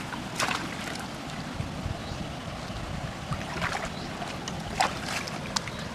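Shallow water splashing and sloshing as a person wades through a muddy ditch and steps out onto the bank, in a few short irregular splashes over a steady low rumble.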